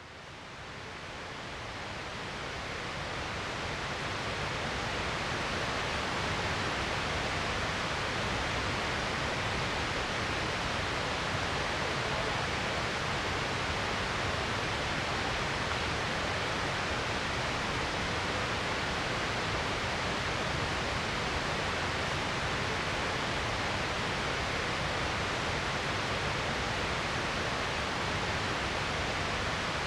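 Waterfall: a steady, even rush of falling water, fading in over the first few seconds.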